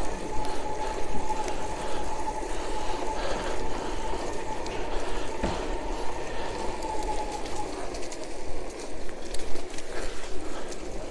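Electric bicycle's 500-watt Alba conversion-kit motor whining steadily while riding, over road and wind noise. The whine fades out about eight seconds in and comes back near the end.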